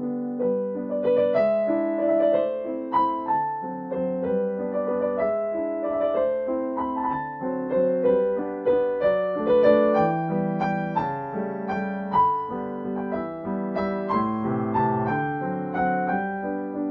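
Background piano music: a melody of struck notes played over chords.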